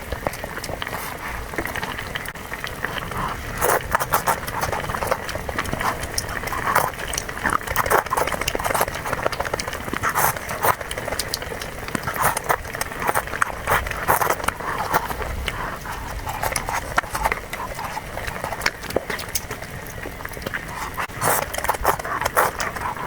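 Close-miked eating sounds: chewing with many small, irregular wet clicks and mouth smacks.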